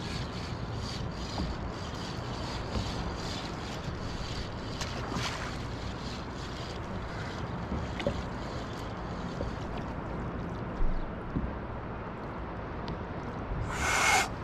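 Steady low rumble of wind on the microphone and water against a kayak, with faint regular ticking early on. Near the end comes a short, loud swish as a light fishing rod is cast.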